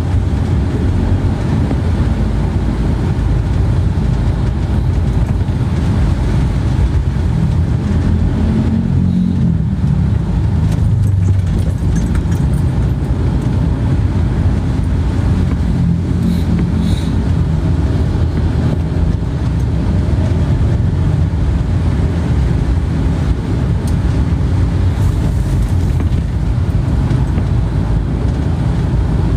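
Steady low rumble of a moving vehicle heard from inside the cabin, with the engine's hum rising and fading slightly along the way.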